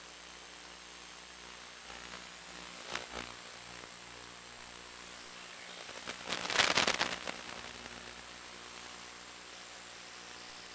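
Steady hiss and hum from an FPV video receiver's audio channel. A short crackle of static comes about three seconds in, and a louder burst of crackling static comes around six to seven seconds.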